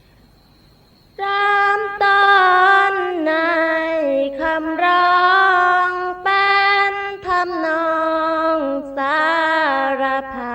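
Female voices chanting a sarapanya in Isan Thai melody, with no instruments. The singing starts about a second in and moves in long held notes that step down in pitch, broken by short breaths, with a wavering ornament near the end.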